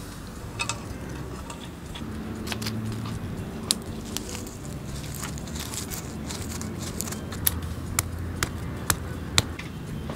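Dry spices for a rasam being pounded by hand into powder: sharp knocks, a few early on and then about two a second over the last few seconds, over a low steady hum.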